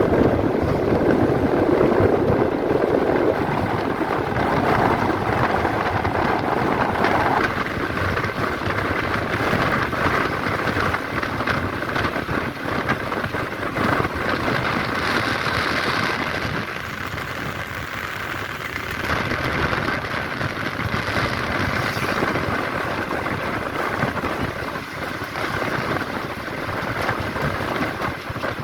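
Tamil Nadu government bus underway, heard from inside: steady engine and road noise, louder for the first few seconds.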